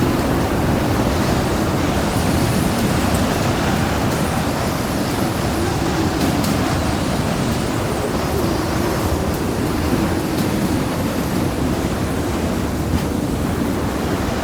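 Storm wind blowing hard and steadily, a dense rushing noise with a low moaning howl that slowly wavers in pitch.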